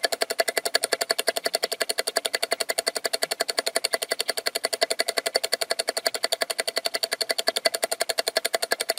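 A rapid, perfectly even train of sharp clicks, about seven a second, each with a short ringing tone.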